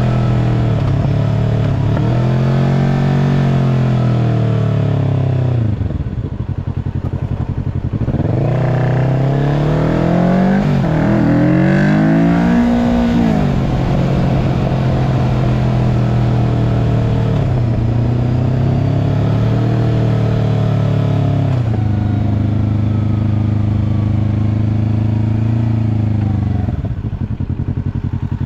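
Kawasaki Ninja 650 parallel-twin engine through an aftermarket slip-on exhaust, its pitch climbing and falling several times, with steady stretches between and a few sharp drops in pitch and level.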